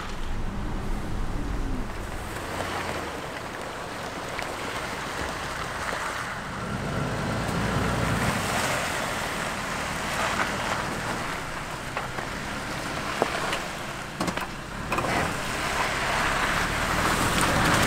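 Toyota 4Runner driving slowly through slushy snow and mud: a steady wash of tyre and road noise with wind on the microphone, and a few sharp clicks near the end.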